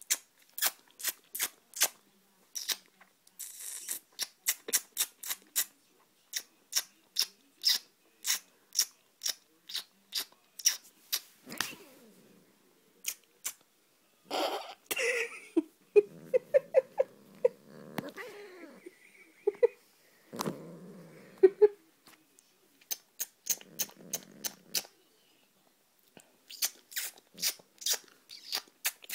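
Repeated kissing smacks, two or three a second, aimed at a cat. In the middle stretch the kisses give way to the cat's low growling and to short bursts of a person's laughter, then the kissing resumes near the end.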